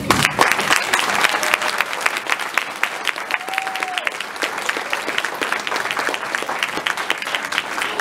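Audience applauding: many hands clapping in a dense, steady patter, with a short held tone standing out above the clapping about three and a half seconds in.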